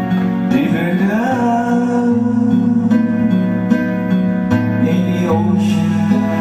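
A man singing a love ballad over a strummed acoustic guitar backing track.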